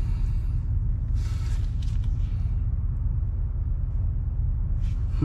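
Steady low machine rumble in the background, with two short scrapes about a second and two seconds in as tongue-and-groove pliers work a carriage bolt out of a wooden block.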